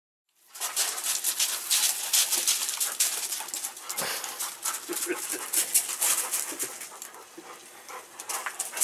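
German Shorthaired Pointers panting with a few brief whines over the steady hiss and patter of an oscillating lawn sprinkler's spray, starting about half a second in.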